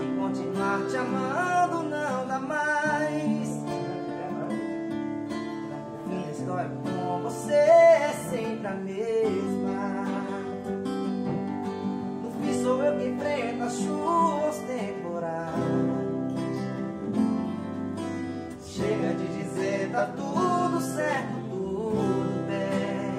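Three acoustic guitars strummed and picked together in a wordless passage, with a bending melody line over the chords.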